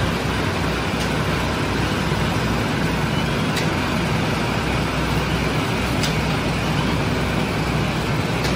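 Steady machine roar of a gas-fired conveyor bread oven and its burner blower running, with a low hum underneath and a faint click every couple of seconds.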